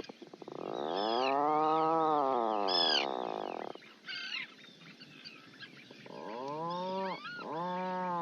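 Animal calls: one long drawn-out call that rises and falls in pitch and cuts off a little under four seconds in, then two shorter arched calls near the end. Short high chirps run over them.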